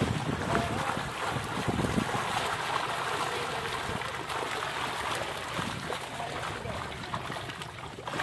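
Pond water splashing and trickling as a net of fish is hauled out.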